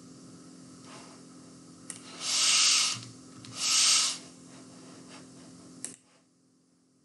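Two loud puffs of hiss on the microphone, about a second and a half apart, starting about two seconds in, with a faint click before and after. The sound cuts off abruptly to silence about six seconds in.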